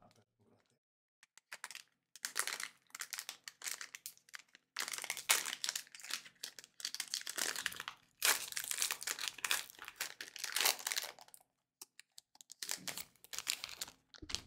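Foil trading-card booster pack wrapper crinkling and tearing as it is ripped open by hand, in several long bursts with two short pauses, then a brief rustle near the end.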